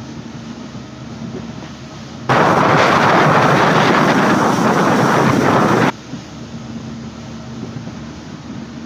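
Open boat's engine running with a steady hum, while the boat moves along. About two seconds in, a loud rushing noise cuts in suddenly, lasts about three and a half seconds and cuts off just as suddenly.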